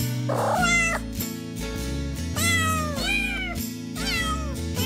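Cat meows over background music: several short meows, each falling in pitch, a second or so apart.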